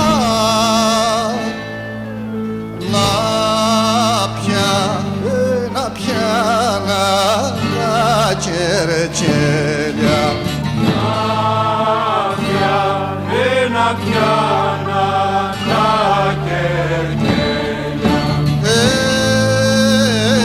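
Cretan rizitiko song: a male voice sings a slow, ornamented melody with strong vibrato over sustained low accompanying notes.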